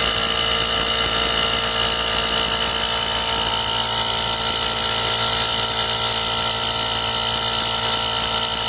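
TOTAL TACLI2001 20 V cordless single-piston tyre inflator running steadily, pumping air into a punctured car tyre.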